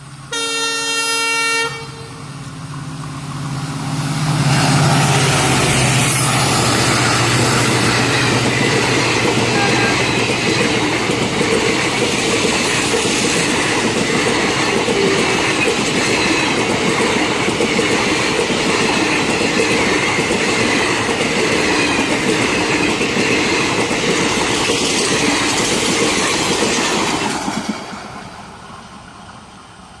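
Indian Railways passenger train's locomotive horn gives one loud blast of about a second and a half as the train approaches at about 100 km/h. The train then rushes past close by, its wheels clattering steadily on the track for over twenty seconds, and the sound fades away near the end as the coaches recede.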